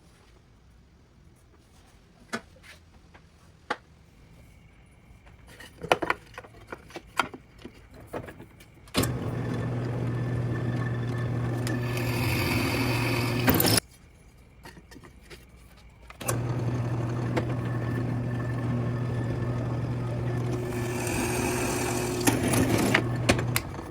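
A few handling clicks and knocks, then a power tool's motor runs twice, for about five and then seven seconds. A harsher, hissing cutting noise builds near the end of each run.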